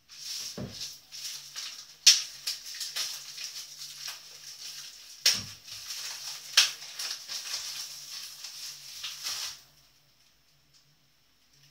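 Crunching, crackling handling noise from food being prepared by hand at a kitchen counter, dotted with a few sharper clicks. It stops abruptly near the end.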